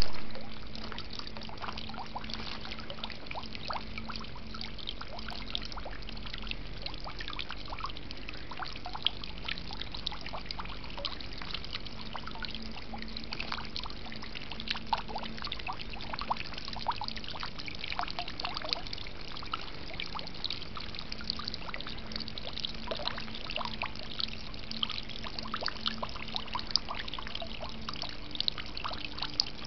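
Garden water fountain: water pouring and trickling steadily, with many small splashes and drips.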